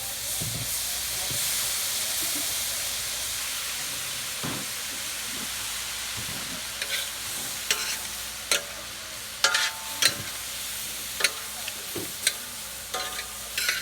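Onions and yellow squash sizzling in hot peanut oil in a wok, the sizzle swelling right at the start as soy sauce goes in. From about halfway on, sharp clinks and scrapes of stirring against the wok break in over the sizzle.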